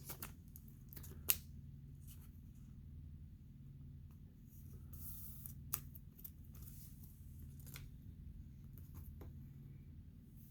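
Trading cards being handled and set down: faint, scattered clicks and light rustles, with a sharper click about a second in and another near six seconds, over a low steady hum.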